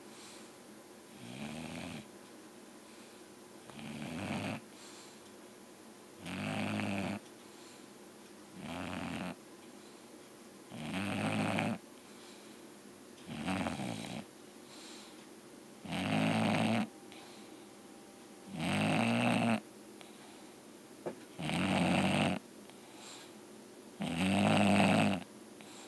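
English bulldog snoring in her sleep: about ten rhythmic snores, one every two and a half seconds or so, each a rough pitched rasp, getting louder in the second half.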